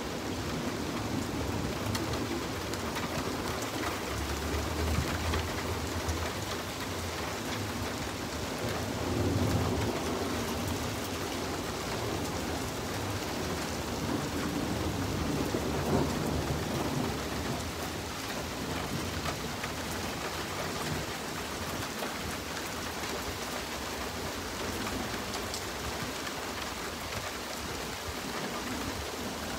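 Steady rain falling on pavement and lawns, an even hiss throughout. Low rumbles of distant thunder swell and fade during the first half.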